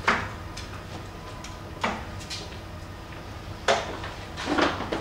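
Three darts striking a dartboard one after another: three sharp thuds about two seconds apart, the last the loudest.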